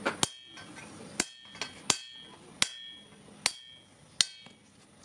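Hand hammer striking a sheet-iron kadai, about eight irregularly spaced blows, each leaving a short metallic ring.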